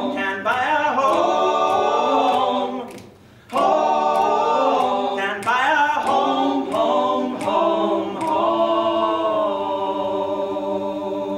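Male barbershop quartet singing a cappella in close harmony, with a short break about three seconds in, then holding long chords near the end.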